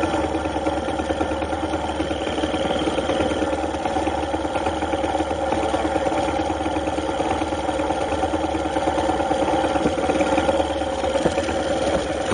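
A vehicle engine running at a steady speed, its pitch holding constant.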